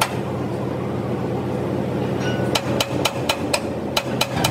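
Hammer strikes: one blow at the start, then from about halfway a quick run of about eight sharp blows, roughly four a second, over a steady low hum.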